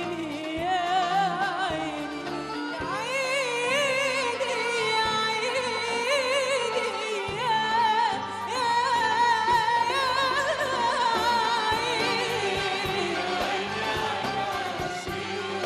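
A woman singing a classic Egyptian Arabic song in a live concert, her voice wavering through ornamented runs over Arabic orchestral accompaniment. A mixed male and female chorus sings along near the end.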